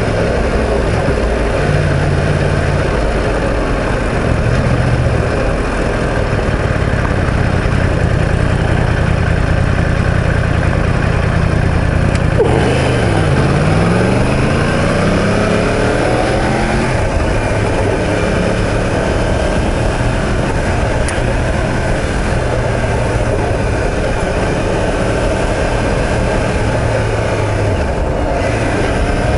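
Yamaha YZF-R1M sport bike's crossplane inline-four engine running under way, with wind rushing past. About twelve seconds in, the engine note drops as the bike slows, then climbs again as it accelerates.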